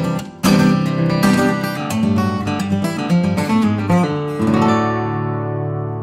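Background music of strummed acoustic guitar chords. A final chord rings out and slowly fades over the last second and a half.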